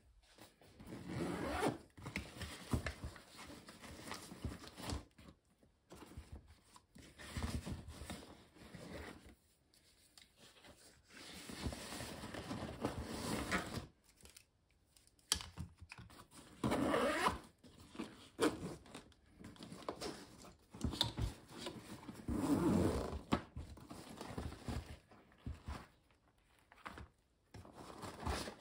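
Zipper of a Tasmanian Tiger Modular Hip Bag 3 being pulled open and its nylon fabric handled, with rustling and scraping as items are taken out, in irregular bursts with short pauses.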